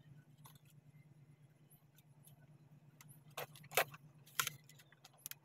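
A few short, sharp clicks and knocks of plastic and a circuit board being handled as a portable Bluetooth speaker is put back together, starting about three seconds in.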